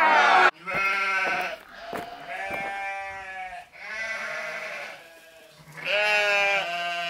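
Sheep bleating, about five wavering bleats one after another, the first one the loudest.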